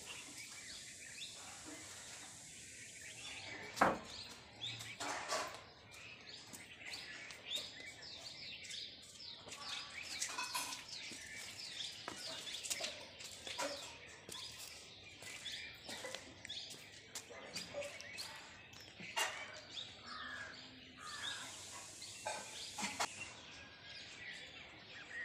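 Birds chirping, faint, in many short quick calls over a steady high hiss, with a couple of sharp knocks along the way.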